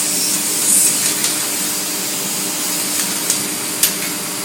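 Hoover vacuum cleaner running steadily with a motor hum and airy hiss, and a few short sharp clicks in its second half.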